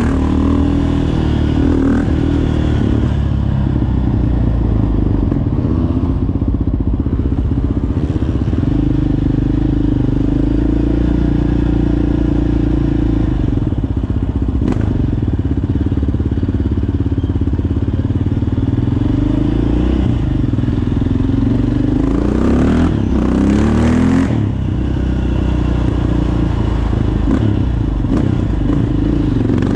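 Yamaha Raptor 700 sport quad's single-cylinder four-stroke engine running through an aftermarket Yoshimura exhaust while being ridden, mostly steady with two quick rises in revs about three-quarters of the way through.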